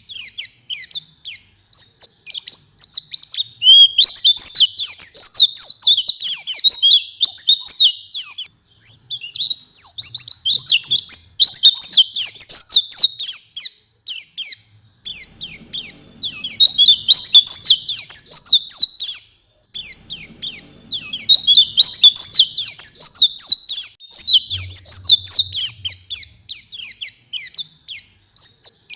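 A white-eye (pleci, Zosterops) singing a fast, varied, high twittering song in full voice, in long phrases of several seconds broken by short pauses.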